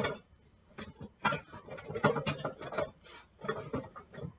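A run of irregular knocks and clinks of kitchen utensils and cookware being handled, loudest about a second and two seconds in.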